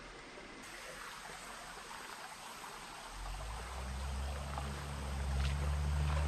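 Shallow stream water running and trickling over stones. About halfway through, a low rumble of distant thunder swells up and grows steadily louder.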